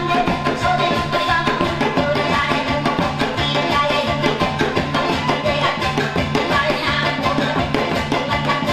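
Upbeat music with a steady beat, with a Korean barrel drum (buk) struck with sticks in time with it.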